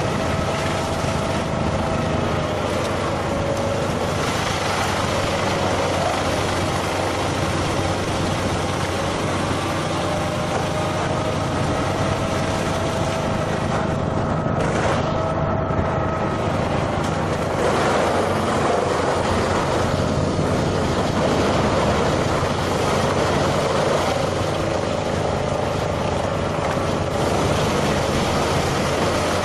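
A heavy machine's engine running steadily, with a faint wavering whine over the engine noise.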